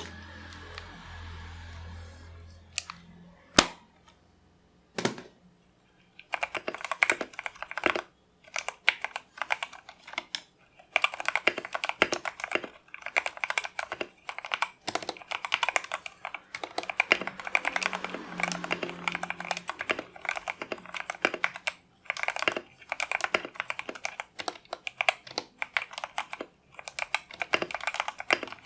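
Mechanical keyboard with Outemu Black linear switches being typed on fast and steadily, after a few single key clicks at the start. It is modded with PE foam and acoustic foam for a deeper, muted "thock".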